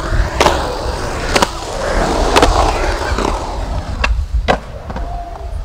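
Skateboard wheels rolling and rumbling on a concrete skatepark surface, with sharp clacks about a second apart, then two clacks close together about four seconds in as a flip trick is popped and landed.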